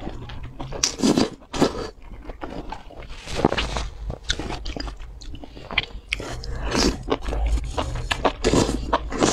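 Close-miked eating sounds: a person biting and chewing saucy spicy skewered food, enoki mushrooms among it, in irregular bursts of wet mouth noise with sharp clicks.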